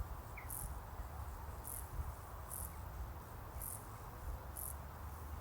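An insect's short, very high-pitched chirps repeating about once a second, over a low steady background rumble.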